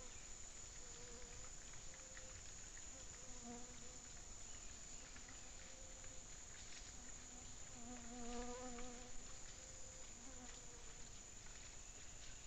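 A flying insect buzzing close to the trail camera's microphone, drifting in and out and loudest about two-thirds of the way through, over a steady high-pitched whine and faint scattered clicks.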